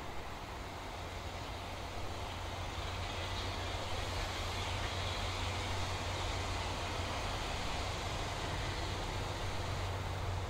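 Airbus A350-900's Rolls-Royce Trent XWB turbofan engines heard from a distance, a steady jet rumble and hiss that grows a little louder about two seconds in.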